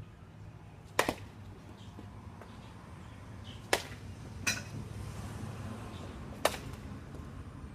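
Baseball bat hitting soft-tossed baseballs: three sharp cracks of contact, about two and a half seconds apart, with a lighter knock just after the second.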